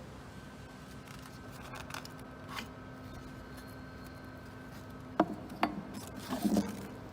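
Parts of a stainless bandsaw being handled during blade removal and cleaning: soft scraping, then several sharp clicks and knocks from about five seconds in, over a faint steady hum.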